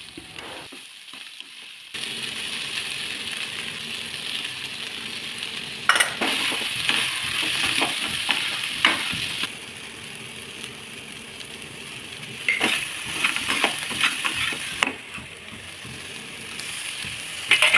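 Vegetables and soya chunks sizzling in ghee in a metal kadhai while a metal spatula stirs them. The spatula scrapes and clicks against the pan now and then, most often in the second half.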